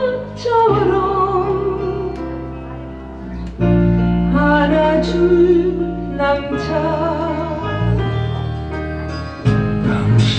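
Korean trot duet: a woman singing with vibrato over a backing accompaniment with a steady bass line.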